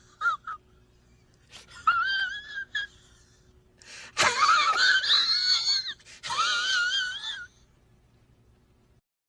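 A high-pitched, wavering wailing voice sound effect, a short cry near the start and then three longer wobbling wails.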